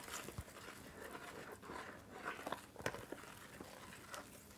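A wooden spoon stirring thick, stiffening playdough mixture in a plastic bowl: faint squelching and scraping, with a couple of sharp knocks of the spoon against the bowl.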